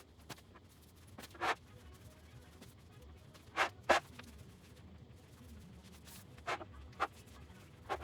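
About six short scratching strokes, spaced a second or two apart, over a faint low background hum.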